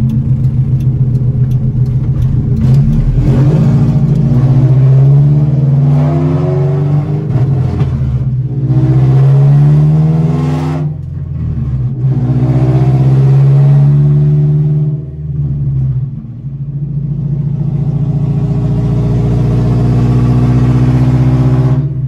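Acura Integra's four-cylinder engine accelerating through the gears: the revs climb, fall away at each of about three upshifts, then hold steady at cruise near the end.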